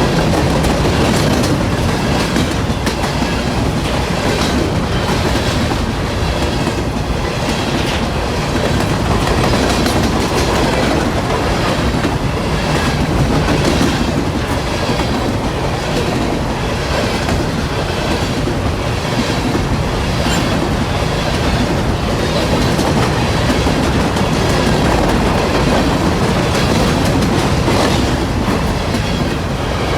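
Norfolk Southern freight train's cars rolling past, steel wheels clacking over the rail joints in a steady, continuous rhythm.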